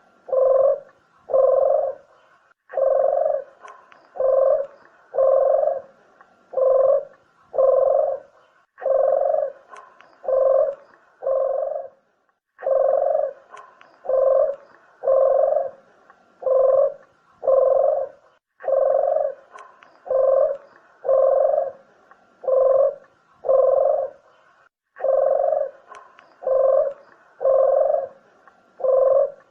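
Puter dove (Barbary dove) cooing over and over, low coos about one a second in long runs broken by brief pauses.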